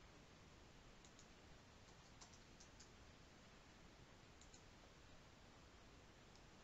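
Near silence: faint room tone with a few soft clicks from a computer mouse and keyboard, some in quick pairs, about one to four and a half seconds in.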